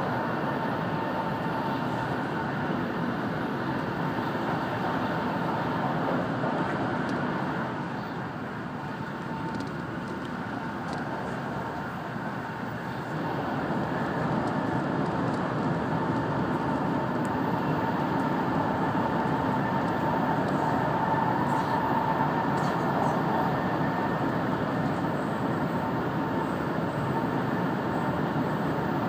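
Running noise inside a 700 Series Shinkansen car at speed in a tunnel: a steady dense rush with a faint steady whine, easing a little for several seconds about a third of the way in.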